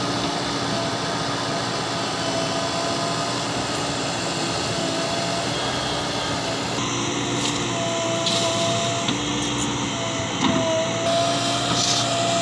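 Diesel engine of heavy machinery running steadily, with a steady whine over the engine noise.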